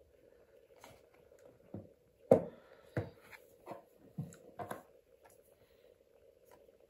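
A series of about eight light knocks and clicks from parts being handled during the fan installation, the loudest about two seconds in, over a faint steady hum.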